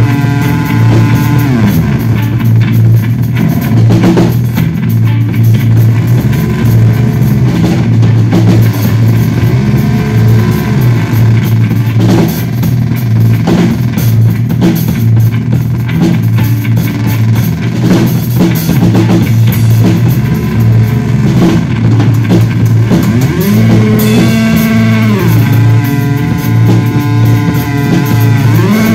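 Instrumental live music from an effects-laden electric bass guitar and a Yamaha drum kit. The bass holds sustained low notes whose pitch slides up and down near the start and again in the last few seconds, while the drums play scattered hits underneath.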